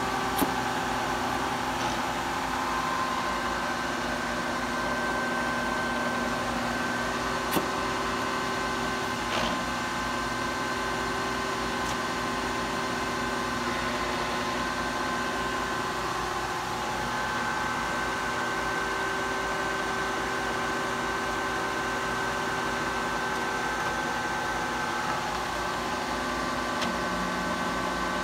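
Kearney & Trecker 205 S-12 horizontal milling machine running, its spindle and gearbox giving a steady mechanical whine made of several tones. The tones shift a few times, as when the speed is changed. A few sharp clicks come near the start and about a third of the way in.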